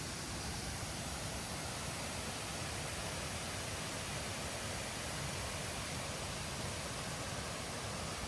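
Steady rushing of flowing water, an even, unbroken hiss with no distinct events.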